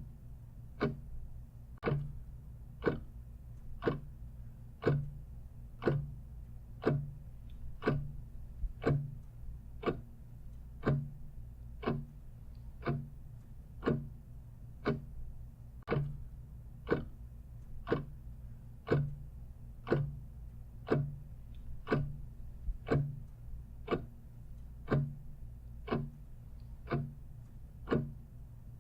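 Clock ticking steadily, about one tick a second, over a low steady hum.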